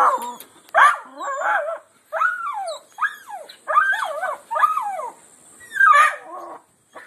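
Small terrier whining and yelping eagerly up at a rooster weathervane: a string of about seven high whines, most of them sliding down in pitch.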